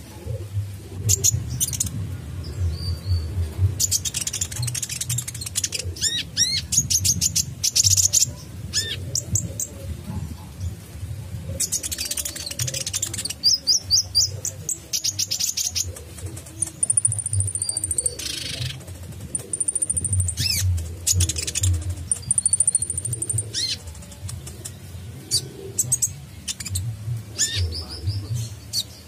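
Caged male Van Hasselt's sunbird (kolibri ninja) singing: rapid high-pitched chirps and sharp trilled bursts, with a few long, thin, high whistles in the middle part.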